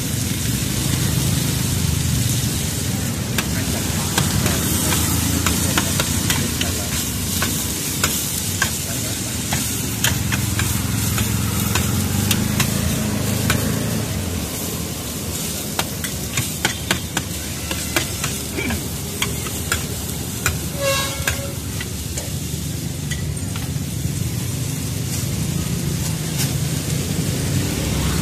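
Noodles, bean sprouts and greens sizzling on a large flat frying pan as they are stir-fried, with many quick clicks and scrapes of a metal spatula against the pan.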